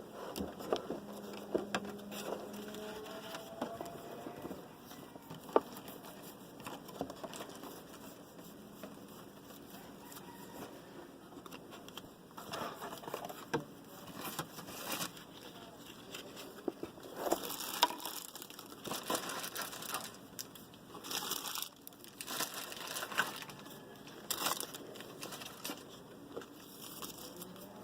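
Foil trading-card pack wrappers crinkling and tearing as packs are opened, with cards handled between, in scattered crackly bursts that come thicker in the second half.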